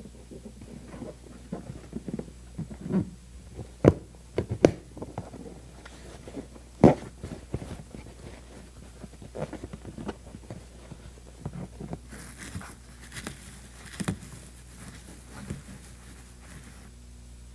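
A leather upholstery cover being handled and pulled by hand while buttons are tufted into it: rustling and creasing with scattered taps and thumps, and a few sharp knocks about four and seven seconds in.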